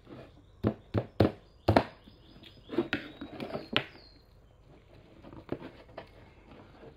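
Eating-utensil sounds against a dish: four sharp taps in quick succession in the first two seconds, then a cluster of softer clinks and scraping in the middle, and a few faint taps near the end.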